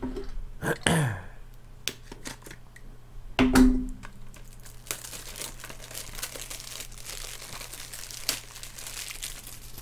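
Plastic shrink-wrap crinkling and tearing as it is peeled off a Blu-ray case, with a few sharp clicks of the case. There is a louder thump about three and a half seconds in, and the crackling is densest over the last five seconds.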